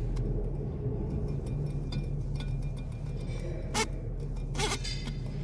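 DAF 105's inline-six diesel engine idling with the gearbox and clutch removed, a steady low drone. Two short sharp clicks come about two-thirds of the way through.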